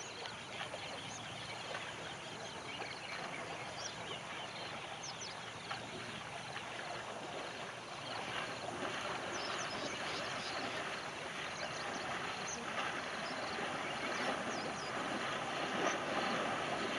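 Shallow river water with an Indian elephant wading through it, its legs splashing; the splashing grows louder in the second half as it comes closer.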